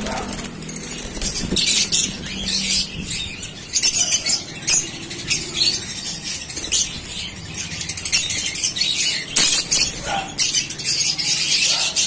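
A flock of caged African lovebirds chattering, with dense, overlapping high-pitched chirps throughout.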